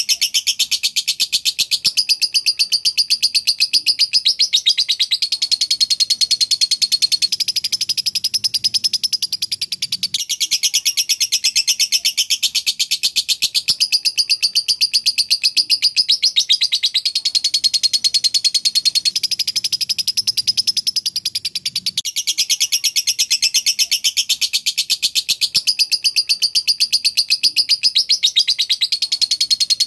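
Lovebird singing in the 'semi konslet' style: a fast, unbroken, high-pitched chatter of rapid-fire notes with barely a pause. The same stretch of song comes round again about every six seconds.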